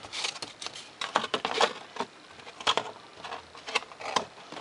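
Hobby knife slicing through foam board, a run of crisp, irregular crackles and snaps as the blade trims a 45-degree bevel off the edge.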